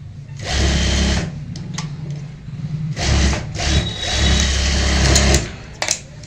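Industrial sewing machine stitching in short runs, starting and stopping about four times, the last run the longest. Near the end come a couple of sharp clicks as shears snip the thread.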